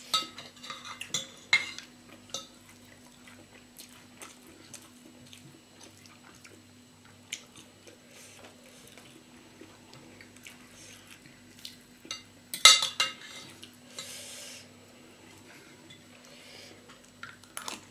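Metal spoon and fork clinking and scraping against a ceramic bowl and plate, in scattered light clicks, with a louder clatter of several clinks about two-thirds of the way through, over a faint steady hum.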